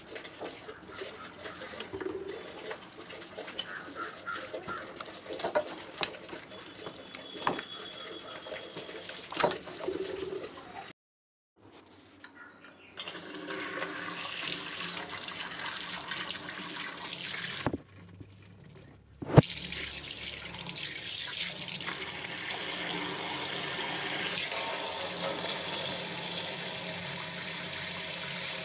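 Water pouring over raw chicken in a steel bowl, with clinks and handling knocks as the chicken is washed; after about twenty seconds a steady rush of running water that grows louder.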